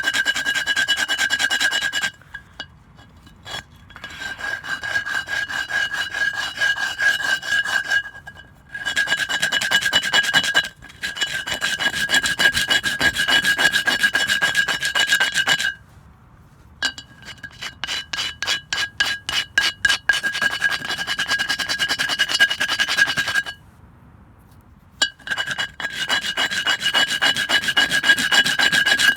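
Hand file rasping back and forth to smooth down an edge, in runs of quick strokes a few seconds long with short pauses between. A steady ringing tone sounds through each run of strokes.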